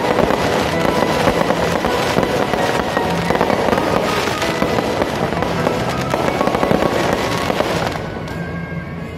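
Aerial fireworks going off in a dense, continuous barrage of crackling pops and bangs, thinning a little near the end. Music runs underneath.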